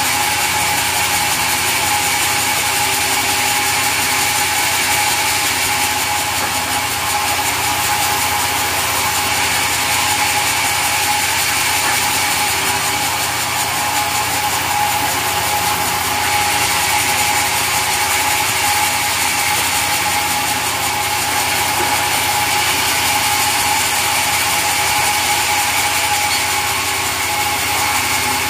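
Sawmill saw and machinery running steadily while sawing mahogany: a steady whine over dense mechanical clatter, with no pauses.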